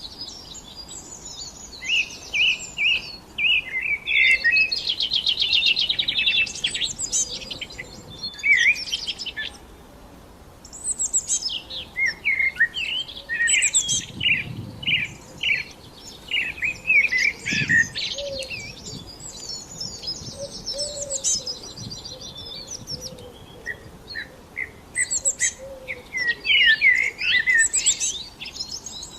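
Songbirds singing: a run of quick chirps and rapid high trills, with a short lull about ten seconds in before the singing picks up again.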